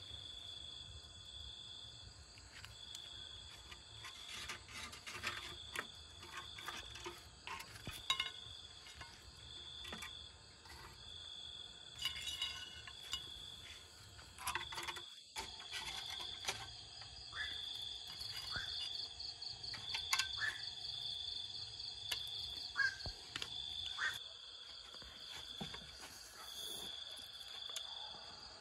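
Insects trilling high-pitched in the background in short repeated pulses, with scattered clinks and knocks as the wire-hooked roasted rats are handled and lifted out of the clay pot oven.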